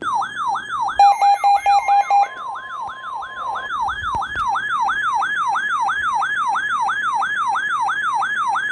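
Electronic siren-style warning alarm with a pitch that sweeps up and down about three to four times a second, announcing a new severe thunderstorm warning. About a second in, a quick run of beeps plays under it, then a steady tone for about a second and a half.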